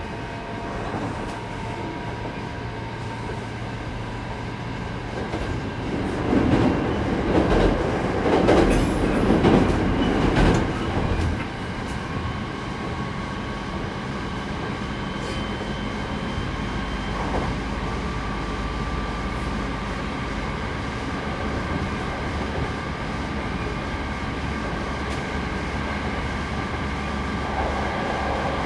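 Hankyu 8200 series electric train running at speed between stations: steady rolling noise with faint steady whining tones from its Toshiba GTO-inverter drive. About six seconds in there is a louder rushing stretch of about five seconds.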